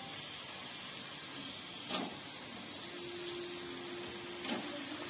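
Masala frying in a pressure cooker with a soft steady sizzle, and two brief soft thuds as raw chicken pieces are dropped in by hand. A faint steady hum joins about three seconds in.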